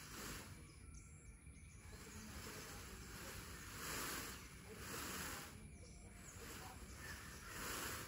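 Faint outdoor ambience: a soft hiss that swells and fades every second or two over a steady low rumble.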